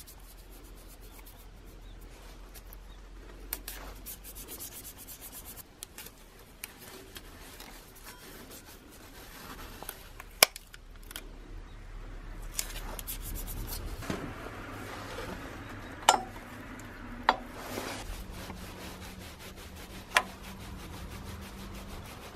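Rubbing and scraping handling noises, with a few sharp clicks or knocks spread through it, like parts and hand tools being worked on a bench.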